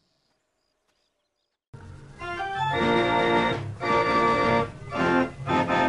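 Near silence for the first couple of seconds, then organ music starts abruptly and plays in short loud phrases broken by brief gaps.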